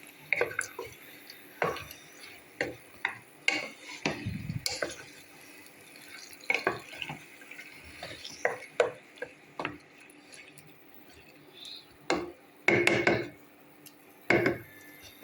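Cooking utensils knocking, scraping and clinking against a pot and dishes in irregular taps, with a few louder clusters of clatter.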